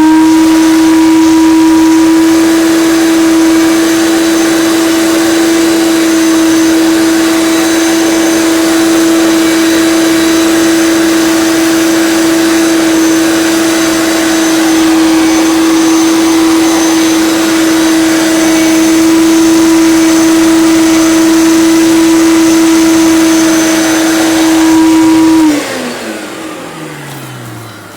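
Hoover Turbopower 1 (U2194) upright vacuum cleaner's motor running at a steady high-pitched whine. About 25 seconds in it is switched off and the whine falls in pitch as the motor winds down.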